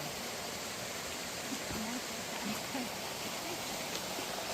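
A steady rushing noise, with faint voices now and then.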